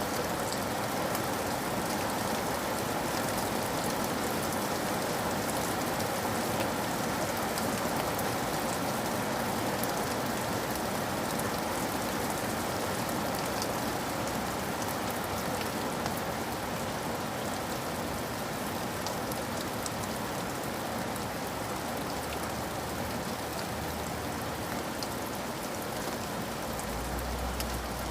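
Steady rainfall: an even hiss with scattered sharp drop ticks. A low rumble comes in near the end.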